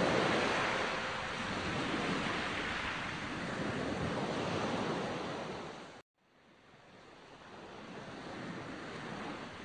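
A steady rushing noise that swells gently, cuts out for a moment about six seconds in, then fades back up.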